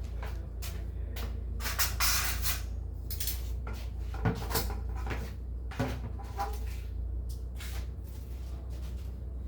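Objects being handled by hand: a string of light knocks and clicks, a rustling, scraping stretch about two seconds in, and sharper knocks around four and six seconds, over a steady low hum.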